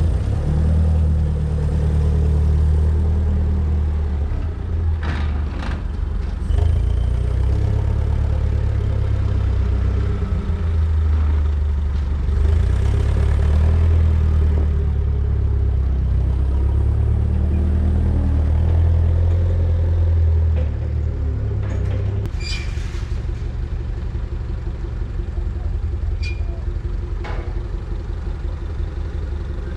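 Hyster forklift's engine running with a deep rumble, rising and falling as it is driven, and easing off a little past the two-thirds mark. A few short metallic clanks come near the end.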